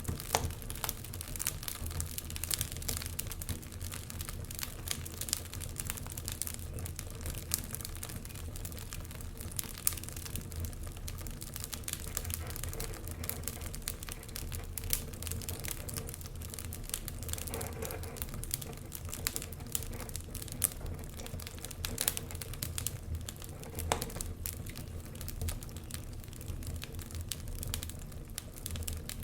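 Wood fire burning in a fireplace: a steady low rumble with irregular crackles and sharp pops throughout, a few louder pops standing out.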